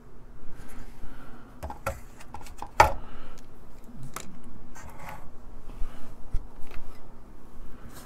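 Handling noise from a computer motherboard being turned over and laid down on a round wooden board: a few light clicks and knocks, the sharpest about three seconds in.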